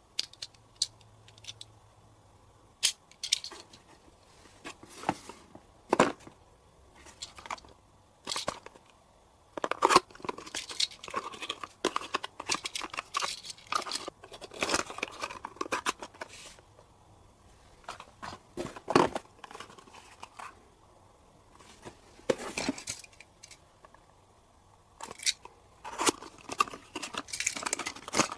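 Handling noises: irregular sharp clicks and short bursts of crinkling and tearing, like plastic or packaging being handled, with quiet gaps between them.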